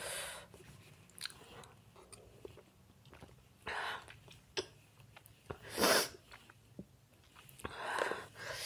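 A person eating spoonfuls from a small plastic cup: small clicks of the spoon against the cup and chewing, broken by three loud breaths about two seconds apart, the hard breathing of someone whose mouth is burning from a very hot chili chip.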